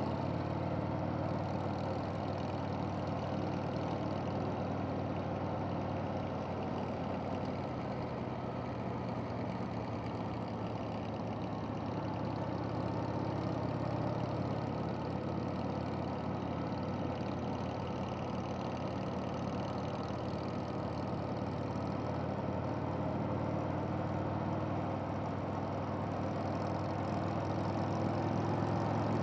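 Harley-Davidson V-twin engine running steadily at cruising speed under the rider, with wind and road rush on the helmet-mounted microphone. The engine picks up slightly near the end.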